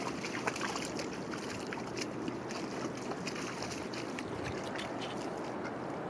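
Shallow rock-pool water trickling and lightly splashing as a dog wades through it, with many small crackling ticks over a steady background hiss.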